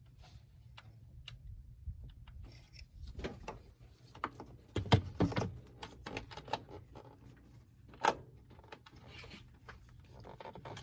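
Scattered light clicks, scrapes and knocks of a new distributor being worked into its housing on the engine. There is a cluster of louder knocks about five seconds in and a single sharp knock at about eight seconds.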